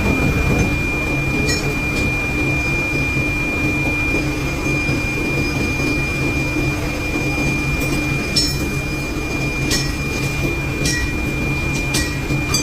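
A machine running with a steady low hum and a thin high whine, with a few sharp clicks in the second half.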